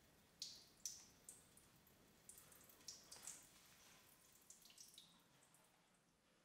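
Faint, scattered drips of water: a few soft, irregular drops over several seconds, with short pauses between them.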